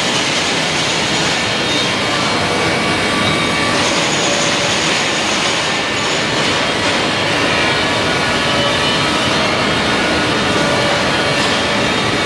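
Steady, loud industrial machinery noise: a constant hiss and hum with faint steady tones, from machinery running in a factory hall, such as the hydraulic unit's pump.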